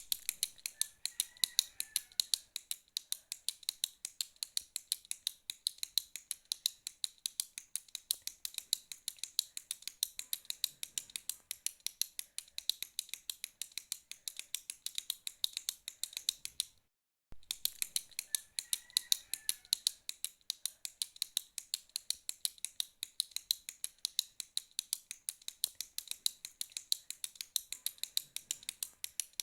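A retractable pen's push button being clicked over and over, in rapid, steady sharp clicks, with a short break a little past halfway.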